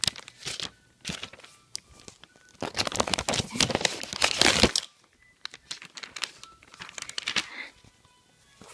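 Plastic packaging crinkling and tearing as it is pulled off a new MacBook Air, with a loud stretch of dense crackling in the middle and lighter rustles before and after.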